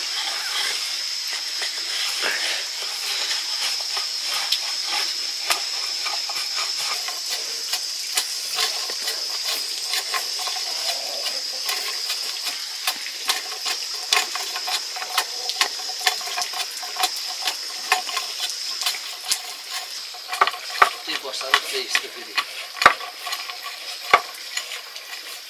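Food sizzling as it fries in a pan while it is stirred, with the spoon scraping and knocking against the pan. The sizzle holds steady, and the knocks come sharper and more often in the last few seconds.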